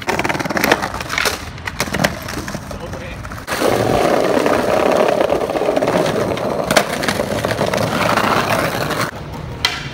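Skateboard wheels rolling over brick pavers, a rough, loud rumble that swells from about three and a half seconds in and drops near the end, with sharp clacks of the board's wooden deck and trucks hitting the ground.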